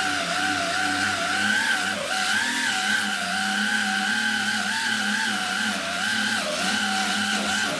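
Eastwood pneumatic underseal removal tool spinning a clawed wire-brush attachment against thick tar undercoating: a steady air-motor whine over hiss, its pitch wavering and dipping as it loads up on the heavy tar.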